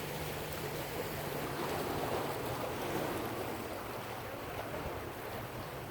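Ocean waves washing steadily against the shore, with wind buffeting the microphone.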